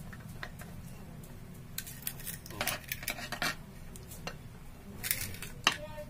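Plastic faucet being taken apart by hand: a string of light clicks, knocks and scraping of its hard parts, with the loudest sharp click near the end.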